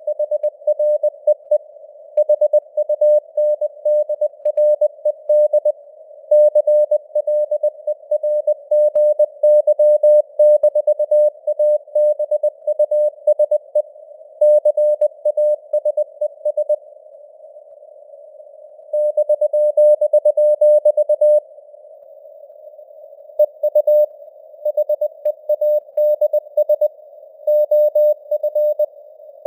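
Morse code (CW) at 20 words per minute: a single mid-pitched tone keyed on and off in dots and dashes over a hiss of simulated radio noise. Twice past the middle the keying stops for about two seconds and only the hiss remains.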